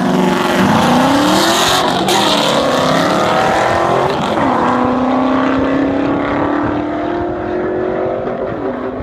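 Two cars launching side by side down a drag strip at full throttle: engine notes rise steadily in pitch and drop back at each upshift, about two and four seconds in and again near the end, growing more distant as the cars run away down the track.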